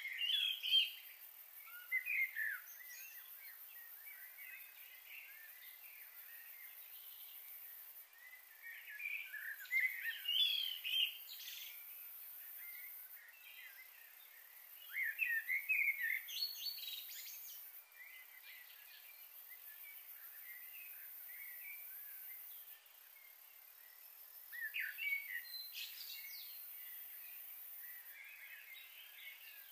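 Wild birds chirping and singing in several bursts a few seconds apart, over a faint steady high hiss.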